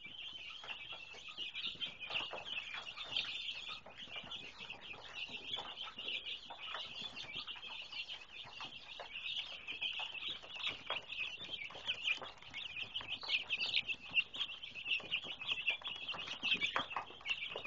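A brooder full of week-old Cornish Rock broiler chicks peeping in a dense, continuous chorus of short high chirps.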